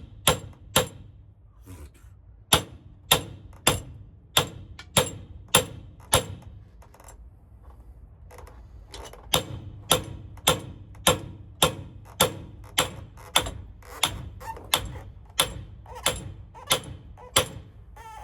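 Hammer blows on steel, about two a second, in three runs separated by short pauses, each with a brief metallic ring: hammering on a driveshaft center bearing to work it loose.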